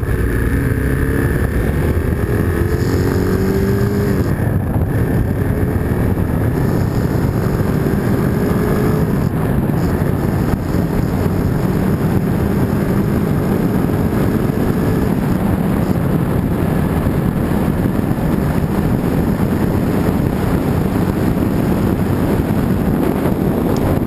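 Bashan Storm 250 cc motorcycle cruising at steady speed in one gear, its engine hum mixed with heavy wind rush on the microphone. The engine tone sinks under the wind noise about halfway through.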